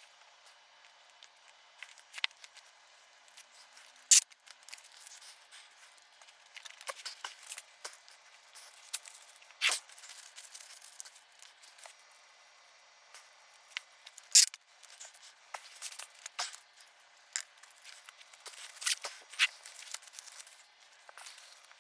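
Scattered clicks, taps and rustles of TV circuit boards and parts being handled and bundled up, with a few sharper knocks about 4, 10 and 14 seconds in.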